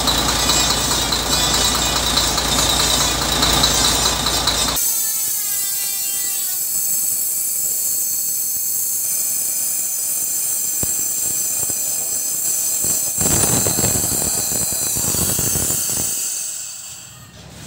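A truck engine running, then, after an abrupt change about five seconds in, a steady high hiss with whistling tones, some falling in pitch. A louder rushing noise comes about thirteen seconds in and fades near the end.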